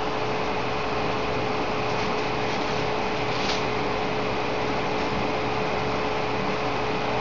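Steady whirring hiss with a constant hum held at one pitch, even in level throughout, typical of a fan or small machine running.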